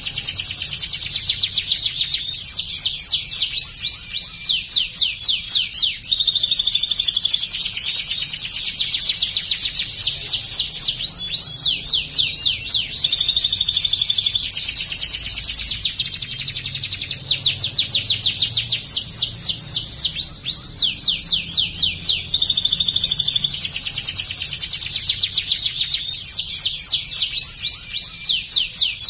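White domestic canary singing insistently, with fast runs of rapidly repeated falling notes alternating with steadier high trills and only brief pauses between phrases; its song carries phrases learned from the bar-winged prinia (ciblek).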